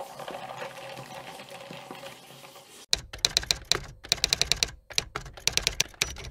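Typewriter keys clacking in quick runs of sharp strikes with short gaps, starting about three seconds in, as a title sound effect. Before that, a bar spoon stirring ice in a tall glass of cola: a soft fizzing hiss with light clinks.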